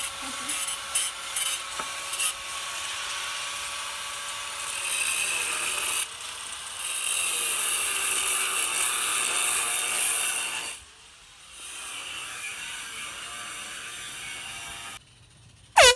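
Power tool running loudly with an even, rough noise that drops off about eleven seconds in. A quieter steady noise follows, then a sudden, very loud, brief sound with a falling pitch just before the end.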